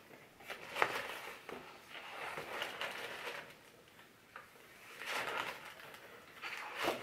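Paper pages of a large coloring book being turned and smoothed flat by hand: several soft rustling swishes of paper.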